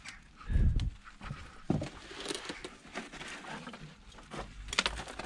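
Footsteps and scuffing over debris in a room, with a heavy low thump about half a second in and scattered clicks and knocks after it.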